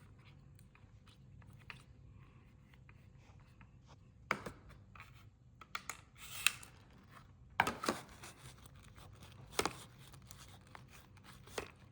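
A mixing utensil stirring thick, sticky slime mixture in a bowl, with a few sharp, irregular scrapes and clicks against the bowl from about four seconds in, as the glue starts turning into slime.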